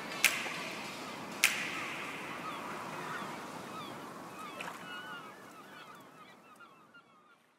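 A noisy wash with two sharp cracks in the first second and a half, then many short chirping bird calls. The sound fades steadily out to silence.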